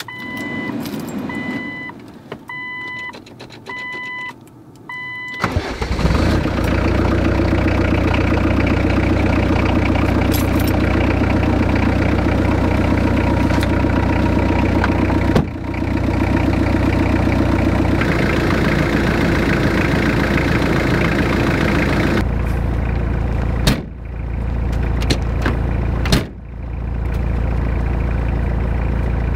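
A warning chime beeps about once a second, then about five seconds in the 1999 Jeep Cherokee XJ's 2.5-litre turbodiesel four-cylinder starts and settles into a steady idle to warm up.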